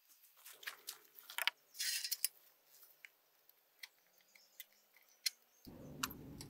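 Light metallic clicks and clinks as a torsion axle's steel mounting bracket and hardware are handled and set against the trailer frame, with a short scraping rustle about two seconds in. Near the end a steady low background noise suddenly comes in.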